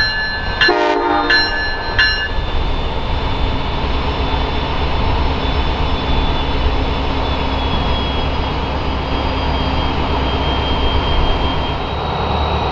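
Siemens Charger diesel locomotive's bell ringing in steady strokes, stopping about two seconds in, with one short horn blast about a second in, the usual signal before the train departs. After that, the locomotive's engine runs steadily with a faint whine that slowly drops in pitch.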